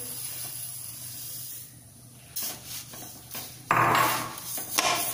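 Sugar poured onto grated carrots in a metal kadhai with a soft hiss, then a perforated metal skimmer stirring and scraping the carrots and sugar against the pan, the scrapes starting about halfway through and loudest just before the end.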